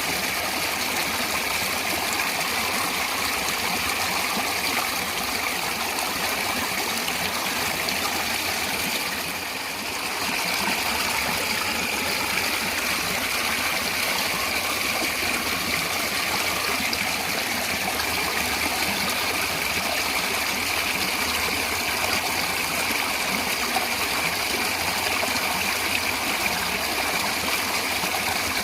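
Flowing water running steadily, an even rush with a brief dip in level about nine seconds in.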